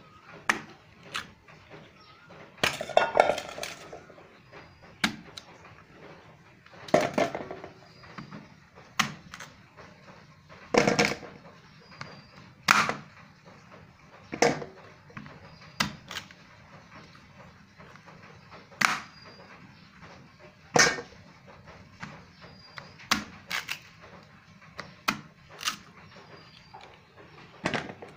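Large kitchen knife chopping peeled cassava root on a plastic cutting board: sharp knocks of the blade hitting the board every second or two, with two longer cutting sounds about three and seven seconds in.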